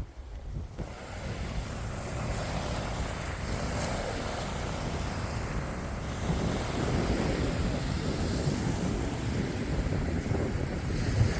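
Wind buffeting the microphone: a steady rushing noise with a low rumble. It comes in suddenly just under a second in and grows louder about six seconds in.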